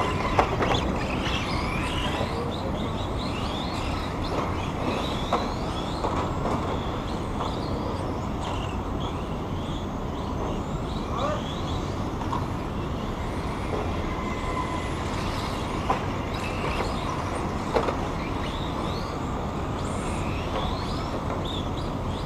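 Radio-controlled model cars racing, their motors whining up and down in short rising and falling sweeps over a steady background rush, with a few sharp knocks.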